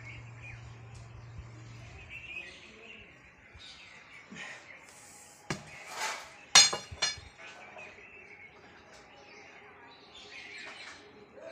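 Birds chirping off and on, with a few sharp knocks or clatters a little past the middle, the loudest ringing briefly.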